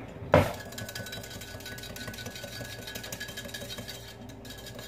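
A single sharp clack about a third of a second in, then a small whisk stirring melted butter and hot sauce in a small bowl: a light, steady run of small ticks and scrapes against the bowl.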